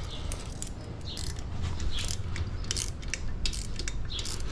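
Irregular metallic clicks from hand work on an SSR 125 dirt bike's new gear shift lever and its clamp bolt, with one click about every half second.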